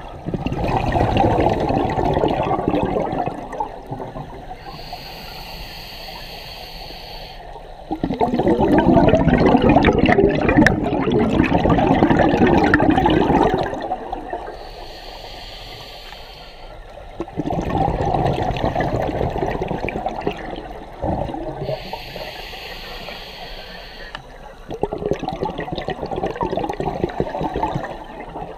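Scuba diver breathing through a regulator underwater. Each breath starts with a short hiss on the inhale, followed by a long, loud rush of exhaled bubbles. The cycle comes about every eight seconds, with four exhales.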